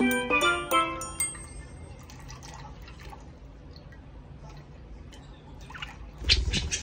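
Water poured from a cup into a shallow plastic bath dish, splashing loudly from about six seconds in, after a few faint drips. It opens with several bright struck notes of mallet-percussion background music that die away within the first couple of seconds.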